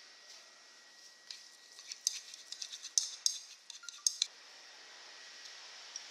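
Metal kitchen utensils clinking and clicking in a quick, irregular series of light strikes, from about a second in until about four seconds in.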